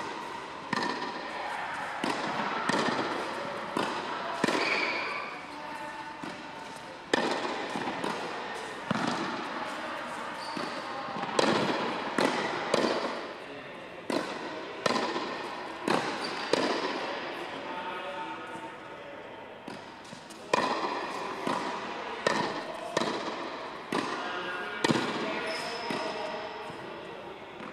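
Tennis ball being struck by a racket and bouncing on a hard court during a rally: a string of sharp pops, irregularly spaced about a second apart, each echoing in a large indoor hall.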